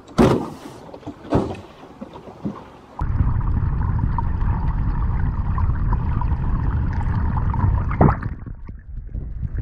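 Steady muffled rush of water picked up by a camera held underwater beside a moving skiff, starting suddenly about three seconds in and dropping away after a sharp knock near the end. A few light knocks come before it.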